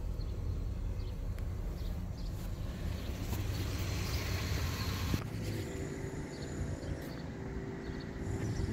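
Ford F-250's 6.2-litre gasoline V8 idling steadily, a low even hum; its sound changes abruptly about five seconds in.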